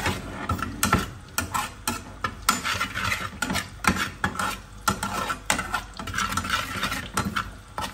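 A steel spoon scraping and clinking against a small aluminium pan while stirring spices into hot oil around green chillies, with many irregular sharp clicks over oil sizzling.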